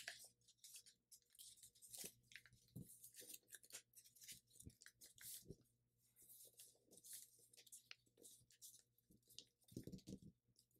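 Faint crinkling and rustling of a thin sheet of paper being unfolded and petal-folded by hand, with scattered small crackles as the creases are worked.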